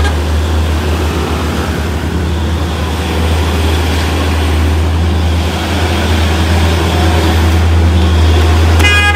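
Heavy truck's diesel engine running under load with a steady low rumble, the truck hauling an overloaded trailer up a steep grade. A horn sounds briefly near the end.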